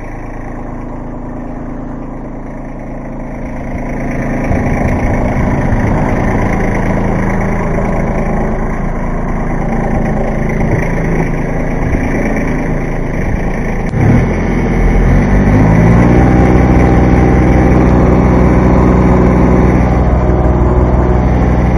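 Kubota B2320 compact tractor's three-cylinder diesel engine running at work. About two-thirds of the way in the engine revs up and holds a higher, louder steady note.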